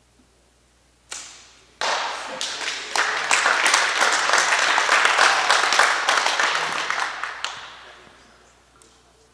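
One sharp sound about a second in, then a small group applauding for about six seconds, dying away near the end.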